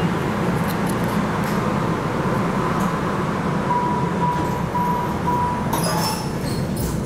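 Steady hum inside a MARTA rapid-transit railcar standing at a station. About halfway through comes a series of four short beeps, followed by a brief clatter.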